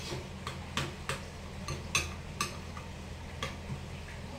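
A spoon stirring a thick sauce in a bowl, clinking against the bowl's sides in irregular light ticks, about two or three a second.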